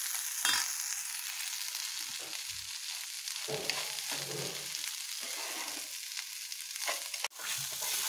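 Sliced green chillies frying in hot oil in a pan, sizzling steadily, while a metal spatula stirs and scrapes them. The sound cuts out for an instant near the end.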